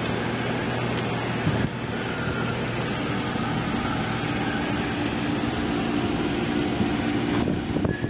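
Car engine running and tyres on the road, heard from inside the moving vehicle's cabin as a steady hum and rumble.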